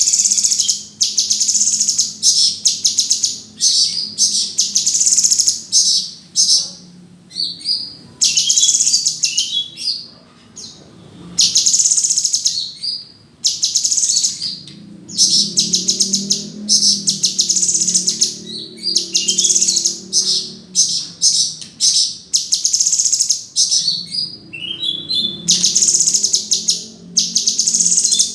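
A cucak cungkok bird singing loud, high-pitched bursts of very rapid rattling notes, long chattering strings repeated every second or two with short breaks between them.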